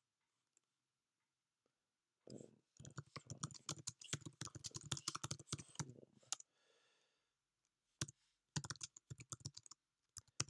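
Typing on a computer keyboard: a fast run of key taps starting about two seconds in and lasting about four seconds, then a couple of shorter bursts of taps near the end.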